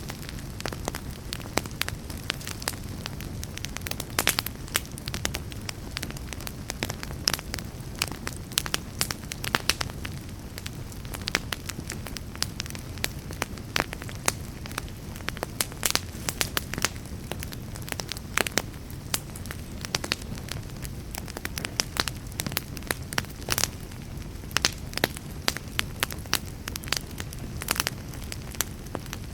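Wood fire burning in a fireplace: a steady low rumble with frequent irregular crackles and pops from the burning logs.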